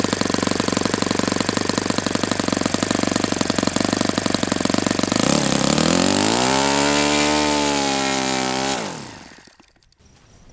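Saito FA-72a four-stroke glow model-airplane engine running at high speed on a test stand, throttled back about halfway through to a low idle, then dying away and stopping near the end.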